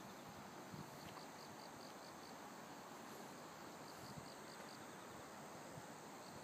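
Faint insects chirping: short runs of rapid, evenly spaced pulses, repeated every second or so over a soft outdoor hush.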